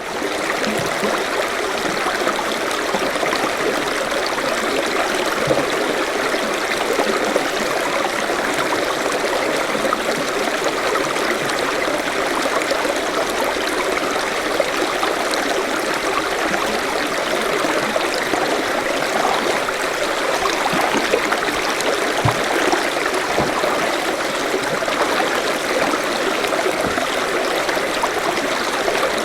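Forest stream running steadily over stones, a continuous babbling rush of water.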